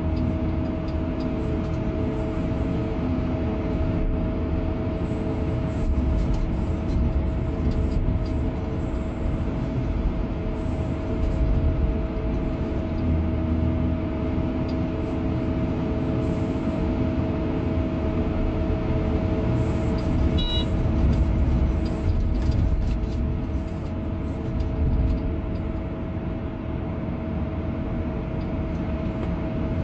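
Hydraulic excavator's diesel engine and hydraulics running steadily under load while digging soil and loading a dump truck, a low drone with a steady whine over it. Occasional scrapes and knocks come from the bucket working in the dirt.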